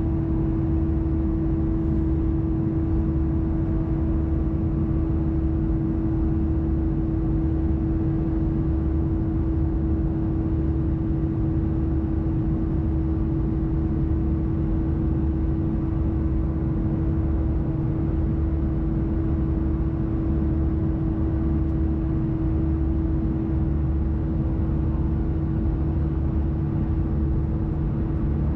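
Airbus A320-214 cabin during the climb: the CFM56 engines' steady low rumble with a constant howl on top, a single unchanging tone from the left engine.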